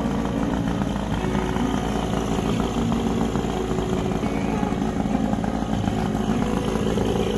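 A motor running steadily under a dense rush of noise with a strong low rumble.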